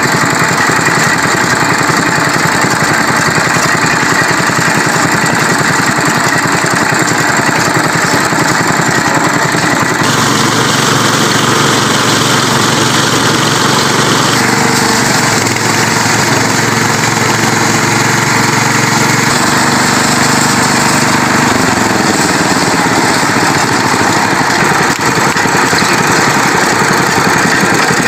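Engine-driven sugarcane juice crusher running steadily, its belt and large flywheel turning the rollers, with the note shifting a little partway through.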